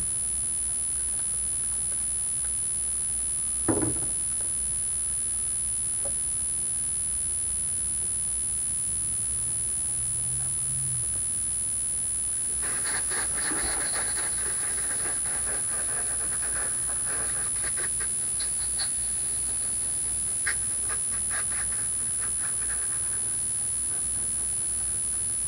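A single thump about four seconds in; from about halfway, a garden hose spraying water onto a car's body, a hiss with crackling splatter. A steady high-pitched whine sits under it all.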